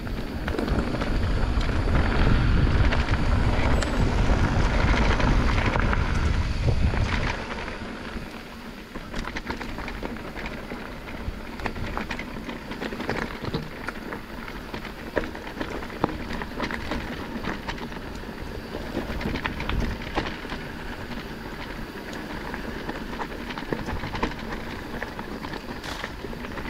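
Mountain bike riding over a rough trail: a loud low rumble of wind on the microphone for about the first seven seconds, then quieter tyre noise with many small clicks and rattles from the bike on the rough ground.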